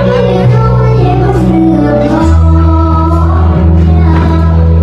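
An 11-year-old girl singing into a microphone over loud amplified backing music with a deep, sustained bass line that changes note about two seconds in.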